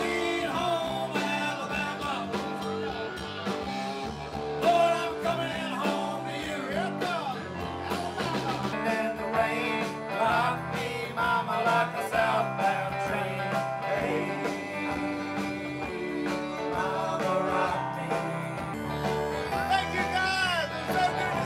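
Live band playing with electric guitars, bass and drums, with voices singing into microphones over it.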